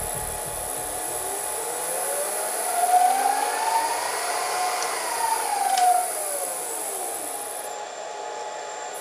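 Milling machine spindle speeding up and then slowing down: its whine rises smoothly in pitch for a few seconds, peaks, then falls away as the spindle winds down.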